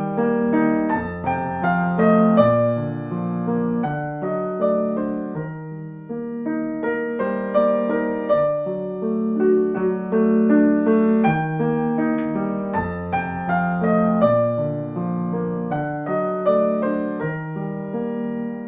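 Slow, gentle solo piano music, notes struck one after another over held low bass notes.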